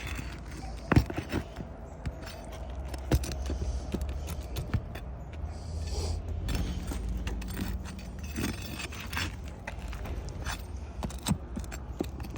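Roofing nails being pried out from under lifted shingles: scattered sharp metallic clicks, clinks and scrapes over a low steady rumble.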